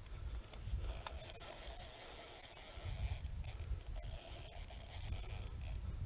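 Fishing reel's drag ratcheting in a high, continuous buzz as a fish runs off with the bait and pulls out line. The buzz starts about a second in and breaks off briefly a few times, over a low rumble.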